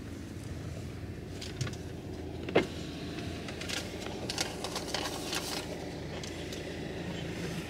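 Car engine idling, heard inside the cabin as a steady low hum, with scattered light clicks and one sharp knock about two and a half seconds in.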